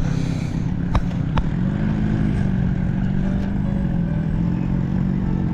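Motor vehicle engine running with a steady low hum, its pitch rising slightly about two seconds in. There are two short clicks about a second in.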